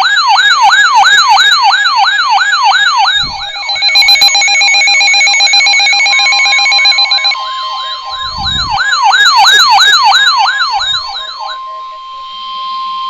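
Electronic siren in a fast yelp, its pitch sweeping up and down about three times a second, with a second, steadier pulsing tone over it for a few seconds. From about halfway, a steady single-pitch alert tone sounds underneath it and carries on alone once the siren stops near the end, typical of the weather-radio warning tone that comes before a broadcast alert.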